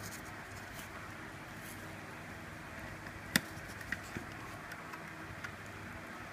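Small clicks and ticks from hands handling a single-board computer and its micro-USB power cable: one sharp click about halfway through, then a few faint ticks. Underneath runs a steady low hum.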